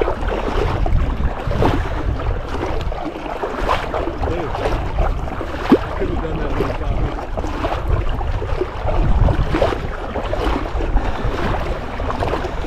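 Wind buffeting the microphone over small waves lapping and sloshing in shallow water, with one sharp click a little over halfway through.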